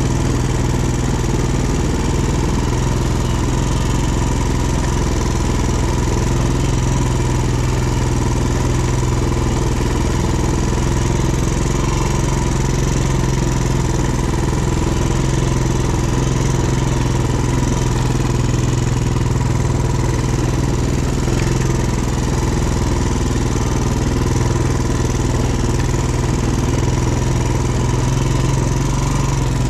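An ATV (quad) engine running steadily at an even speed, holding one pitch with no revving up or down.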